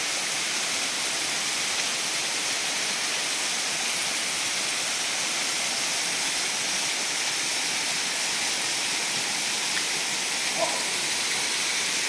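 Steady rushing of a waterfall pouring down a rock face into a pool.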